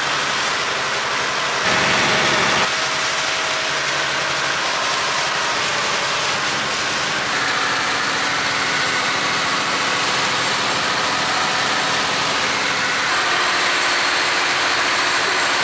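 Long-tail boat engine running steadily under way, with a rush of wind and water noise; a brief louder rush about two seconds in.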